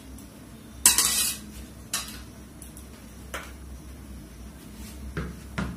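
Kitchen utensils and dishes clinking and knocking: about five separate clatters, the loudest about a second in, over a faint low hum.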